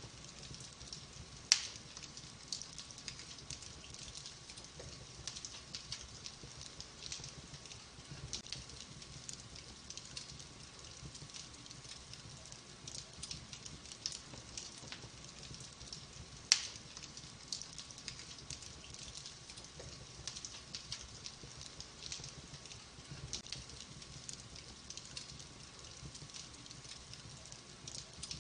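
Wood fire crackling in a fireplace: a steady run of small crackles, with two sharper, louder pops, one about a second and a half in and one about halfway through.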